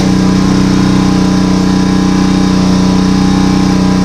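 Small engine running at a steady, unchanging speed, a constant hum.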